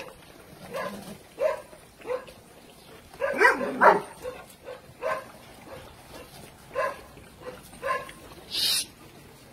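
Dobermans barking and yelping in short separate bursts while they chase and play-fight, with a longer, louder bark falling in pitch about three and a half seconds in. A brief high hiss-like scrape near the end.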